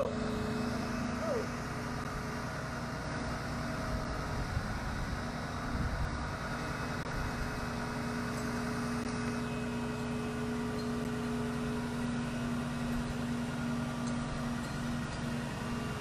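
Truck-mounted crane's engine running steadily with a constant droning hum while it hoists a steel beam.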